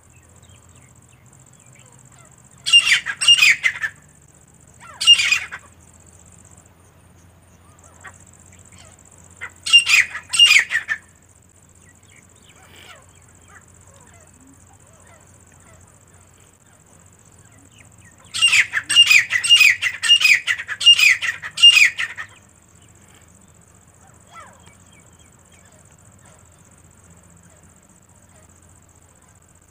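Grey francolins calling: loud, harsh, repeated notes, each falling in pitch. They come in four bursts: two short ones in the first few seconds, another around ten seconds in, and a longer run of about seven notes past the middle.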